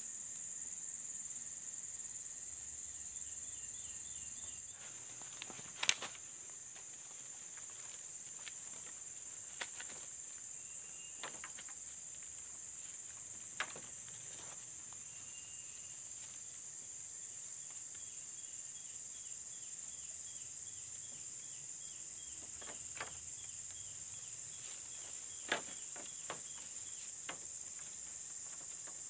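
Steady high-pitched insect chorus, with a few sharp knocks and clicks of green bamboo poles and wire being handled and tied into a floor, the loudest about six seconds in and again near the end.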